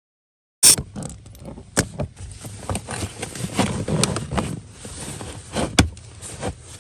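Hand tools and a plastic housing cover being handled: irregular clicks, clatter and rustling with a few sharp knocks, starting abruptly under a second in.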